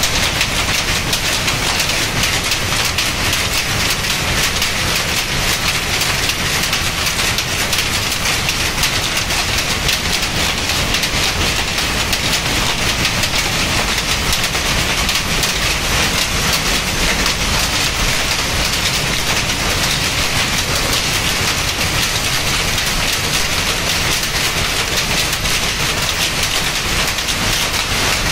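Power loom with an electronic jacquard running at speed, weaving patterned cloth: a loud, steady, fast mechanical clatter.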